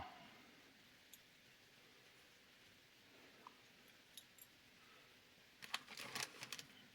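Near silence with a few faint single clicks, then a short burst of sharp clicking and rattling about six seconds in, from small hard parts being handled.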